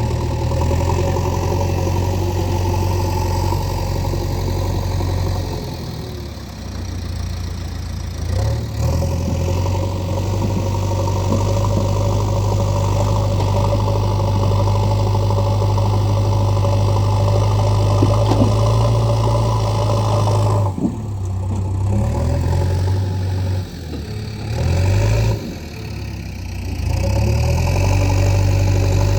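Diesel engine of a JCB 3DX backhoe loader running steadily under work, its revs dropping and picking up again a few times, most often in the last third.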